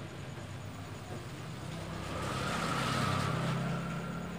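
Samsung 21-inch slim CRT television powering back on: a low electrical hum that swells about two seconds in and eases off again, with a faint steady higher tone above it.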